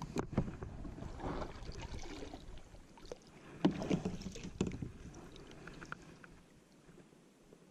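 Kayak on the water: paddle strokes and water sloshing, with several sharp knocks, the loudest about three and a half to four and a half seconds in, then quieter toward the end.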